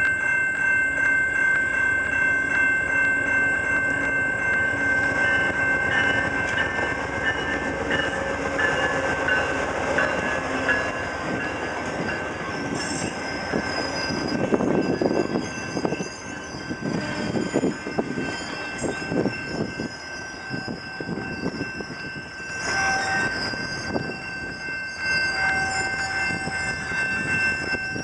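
VIA Rail passenger train passing: a diesel locomotive and its cars rolling by, with a rapid run of wheel clacks over rail joints about halfway through. Under it all runs the steady ringing of a level-crossing bell.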